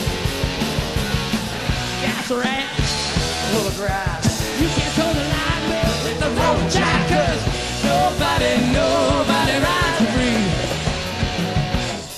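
Live hard rock band playing loud and raw: distorted electric guitar with bent, wavering notes over a pounding drum kit and bass, with vocals at times. The sound drops off briefly near the end.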